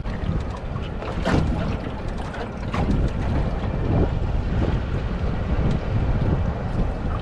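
Wind buffeting the microphone on an open boat, over water lapping at the hull, with a few brief knocks about one and three seconds in.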